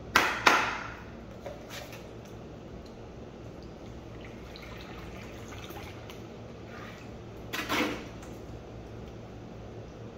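A steel trowel knocks twice, sharply, against a concrete floor at the start. Liquid primer then trickles from a plastic gallon jug onto a mound of floor-patch powder, and a louder double knock follows near the end.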